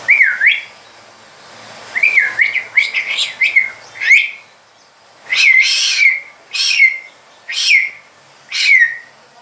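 Grey parrot whistling and chirping: a wavering whistle, then a quick run of short chirps, then a series of five falling whistles, about one a second.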